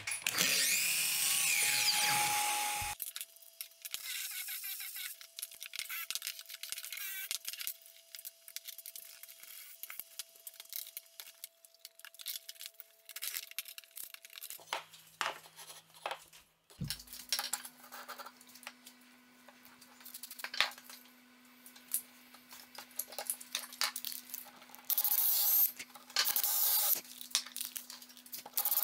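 Sliding miter saw cutting through a pine strip, stopping about three seconds in. Then quieter handling of wood and tools with scattered clicks and taps, and short bursts of a cordless drill driving screws near the end.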